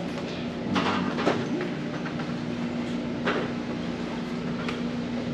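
Steady machine hum with a few scattered clicks and knocks.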